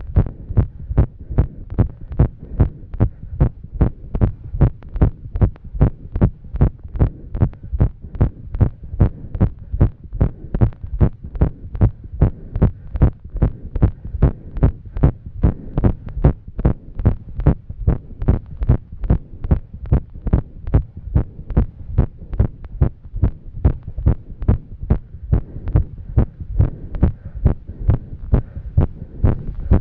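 A woman's heart beating fast after exercise: a quick, even run of low thumps. The uploader takes it for an irregular heartbeat.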